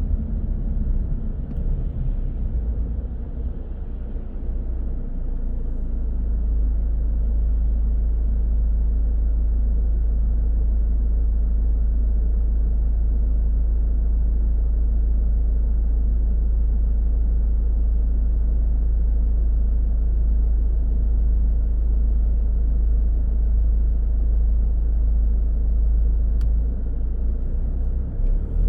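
A car driving along a road: a steady low rumble of engine and tyres that builds a few seconds in and then holds even.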